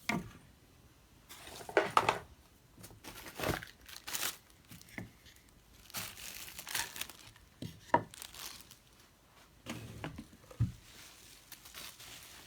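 Packaging being unwrapped by hand, crinkling and tearing in irregular bursts.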